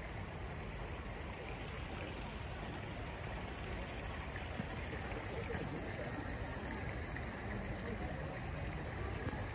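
Hot spring water of the Yubatake rushing steadily through its wooden troughs into the steaming pool.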